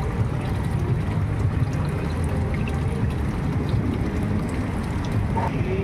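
Steady rushing and bubbling of water from a fish-spa tank's aeration and circulation jets, over a low, even rumble.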